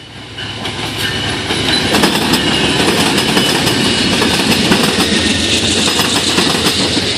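Amtrak train led by a GE P40DC diesel-electric locomotive passing close by, growing louder over the first two seconds as it arrives. It then settles into a steady clatter of wheels clicking over rail joints and a switch as the long line of double-deck passenger cars goes by.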